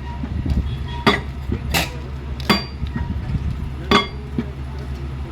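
Borewell drilling rig at work: a steady low engine drone with four sharp metallic clanks at uneven intervals, about one a second.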